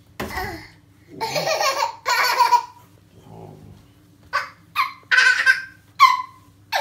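Toddler laughing in excited bursts: longer ones in the first few seconds, then several short high cries that fall in pitch.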